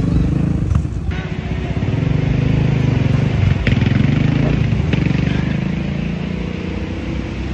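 Motorcycle and car engines running at low revs in slow traffic, a close, steady engine rumble. The sound changes abruptly about a second in.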